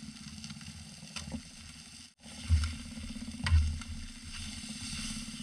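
A fork clicking and scraping against an aluminium foil pan of cooked fish, a few light taps, with two loud low thumps, of wind or handling on the microphone, partway through.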